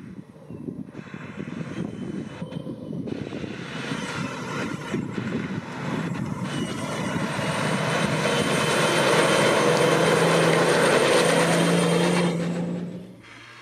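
Off-road 4x4's engine working hard on a rough dirt track. The engine noise builds over several seconds, holds loud and steady, then falls away sharply near the end.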